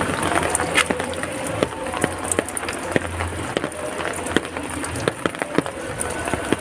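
Heavy rain falling steadily, with many sharp drips and splats of drops hitting hard surfaces over a continuous hiss.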